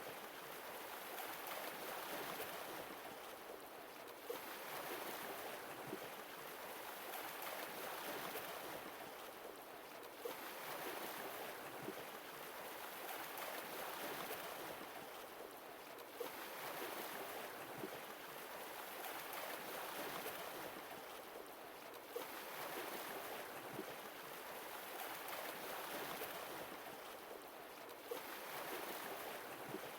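Sea waves washing in gently, one swell about every six seconds.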